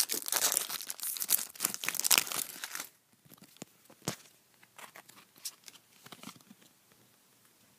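A foil trading-card packet being crinkled and torn open, loud and crackly for about the first three seconds. After that come quieter rustles and a few clicks as the cards are pulled out.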